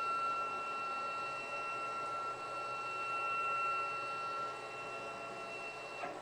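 CNC Shark router's stepper motors whining at one steady pitch as the gantry is jogged across the table, cutting off with a click near the end.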